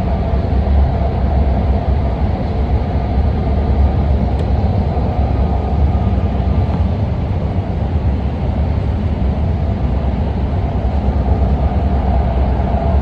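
Steady low rumble and roar of a BART train running at speed between stations, heard from inside the car.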